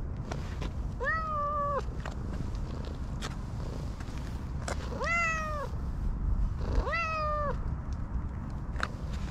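A cat meowing three times: one meow about a second in, then two close together a little past the middle, each rising quickly, held briefly and falling away at the end.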